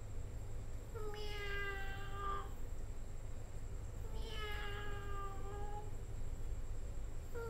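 A cat meowing: two long, drawn-out meows about a second in and about four seconds in, each lasting a second and a half to two seconds, with a third starting right at the end. A steady low hum runs underneath.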